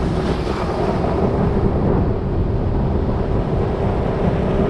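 Motorboat running across open water: wind buffets the microphone in a loud, steady rumble, with the even hum of the motor underneath.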